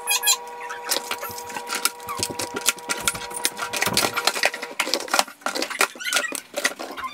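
Quick, irregular clicks and clatter of small plastic items and containers being picked up and set down on a countertop, with a faint steady tone behind them that stops about four seconds in.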